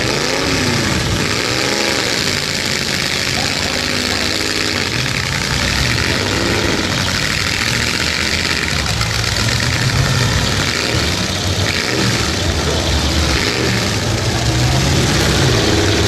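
Several pickup truck engines revving hard at once in a demolition derby, their pitch repeatedly climbing and dropping as the drivers gun them and back off.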